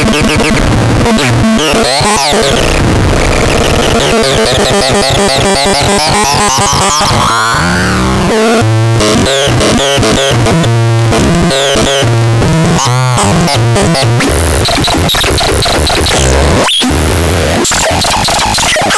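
VOLDAX electronic sound generator putting out harsh, chaotic synth noise: dense hiss with wobbling, sweeping pitches and choppy low pulses, including a long rising sweep partway through.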